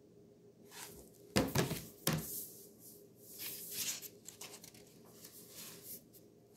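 A large picture book being handled and put down: two knocks about a second and a half and two seconds in, then uneven rustling and handling noise.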